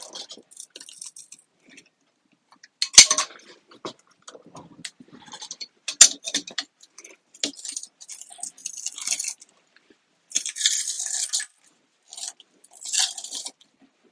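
Glued Tesla Model S battery-module parts being pried and peeled apart by hand: irregular crackling and crunching of the adhesive letting go, with light clinks. There are two sharp snaps, about 3 and 6 seconds in, and bursts of high crackling near the end.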